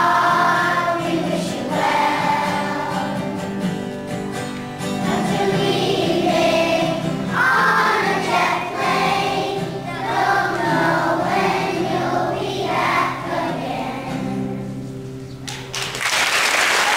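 A children's choir singing with keyboard accompaniment, in phrases over held chords. The song ends about fifteen and a half seconds in, and applause breaks out near the end.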